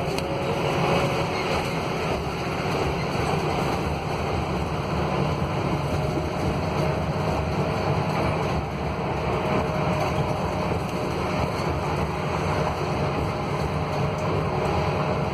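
Cabin noise of a Scania K280UB city bus under way: its Scania DC09 five-cylinder diesel running steadily with road and wind noise and no break. A faint whine rises slightly in pitch from about six seconds in.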